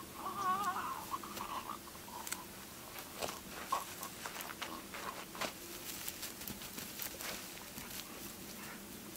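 A wavering, wailing cry in the first second. Then a dog playfully mouthing and nosing at a person lying in grass: scattered short rustles, snuffles and clicks.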